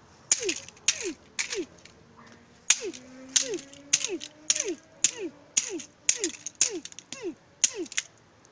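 Repeated hard blows smashing a plastic drone remote controller: about a dozen sharp strikes, under two a second, each followed by a short ring that falls in pitch.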